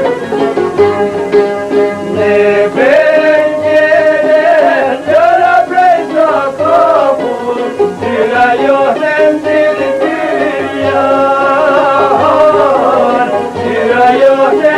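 Traditional Albanian folk music in a Middle Eastern style: string instruments, plucked and bowed, carry a wavering, ornamented melody line over steady accompaniment.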